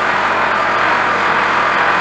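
Cordless handheld vacuum cleaner running steadily, its motor giving a steady whine over a dense rushing noise as the nozzle is drawn across a wooden tabletop.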